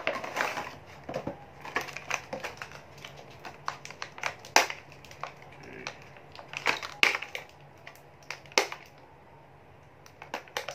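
Irregular crackles and clicks of a toy box being opened and its plastic robot parts and packaging handled, with a quieter pause near the end.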